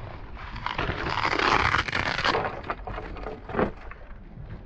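Handling noise from a bundle of fishing rods as its strap is pulled open: a tearing rush lasting about a second and a half, typical of a hook-and-loop rod band, then scrapes and a few light knocks as the rods are handled.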